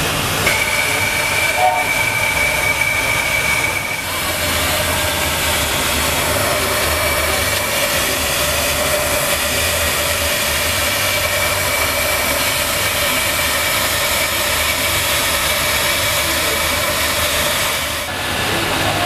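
Steam traction engine running, with a steady hiss of steam and a thin, steady high whine that is strongest in the first few seconds.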